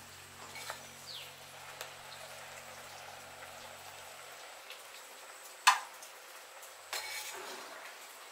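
Potatoes boiling in a pot, a soft steady hiss, with one sharp knock of a utensil against the pot a little past halfway and a short clatter about a second later.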